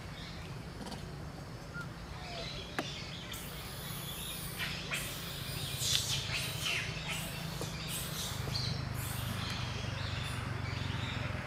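Birds chirping in short, high calls that cluster in the middle of the stretch, over a steady low hum.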